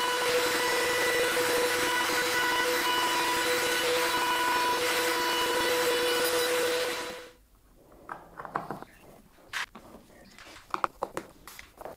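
Table saw running at a steady pitch as a chipboard panel is fed past the blade, with dust extraction. It stops abruptly about seven seconds in. After that come a few light clicks and knocks of a screwdriver and the board being handled.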